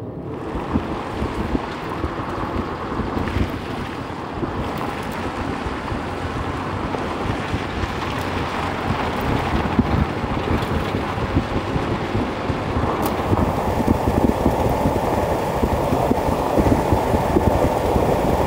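Vehicle driving on a rough unpaved dirt road: a steady rumble of tyres and road with fine rattling, mixed with wind buffeting the microphone, growing gradually louder.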